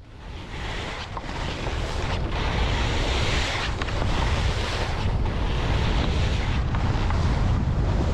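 Wind buffeting the microphone, a steady rushing noise with a heavy low rumble that builds over the first second or two and then holds.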